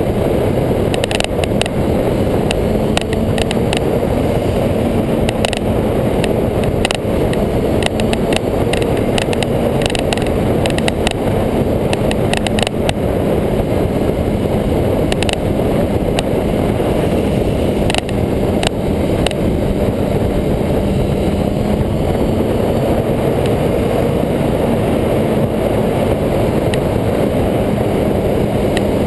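Sportbike engine running at a steady cruise, heard through heavy wind rush on a bike-mounted camera. A steady engine hum holds under the wind, with scattered brief clicks.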